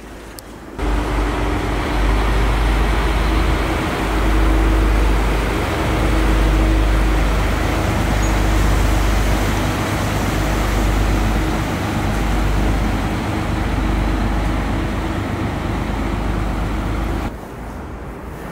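RiverCat catamaran ferry passing close by under way, its engines running with a steady low rumble and a humming tone. The sound starts suddenly about a second in and cuts off sharply near the end.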